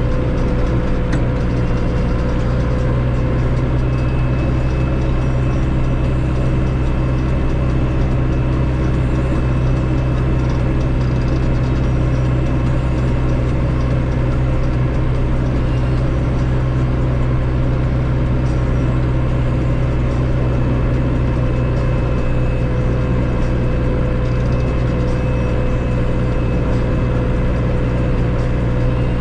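Massey Ferguson 5445 tractor's 4.4-litre Perkins common-rail diesel engine running at a steady, even drone, heard from inside the cab.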